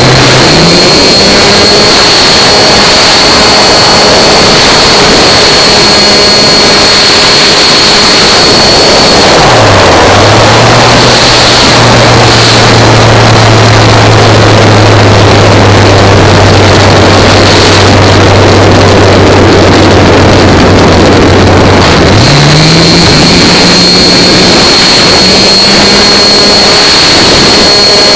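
A 40-size model airplane's glow engine running in flight, heard up close with heavy wind noise. Its note rises about a second in, drops lower when throttled back about a third of the way through, and climbs again about three quarters of the way through.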